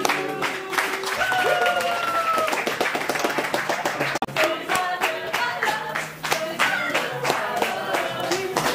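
A group of people singing together and clapping along in a steady rhythm.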